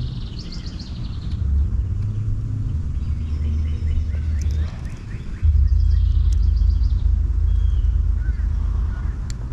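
Low, irregular rumble of wind buffeting the microphone, rising sharply about halfway through. Birds chirp faintly in the background.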